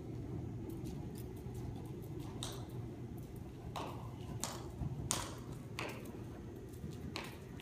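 A horse cantering on the sand footing of an indoor arena: a steady low rumble with a few sharp clicks at uneven intervals, about a second apart.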